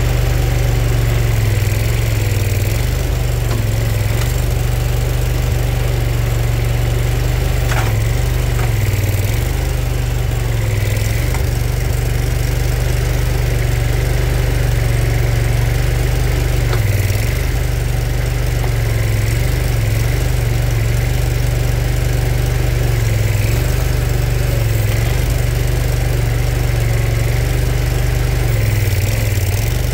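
Kohler 27 hp Command Pro V-twin engine of a Boxer 427 mini skid steer running steadily while the hydraulic rotating grapple is worked over logs. The engine note wavers briefly a few times.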